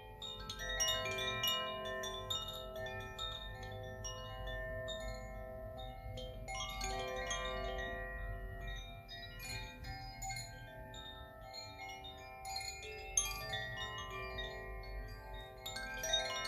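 Chimes ringing: many small, bright strikes over overlapping tones that linger and shift.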